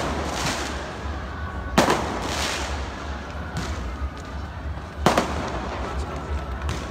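Fireworks exploding: two sharp loud bangs, about two and five seconds in, with fainter pops between them, over the steady hubbub of a large outdoor crowd.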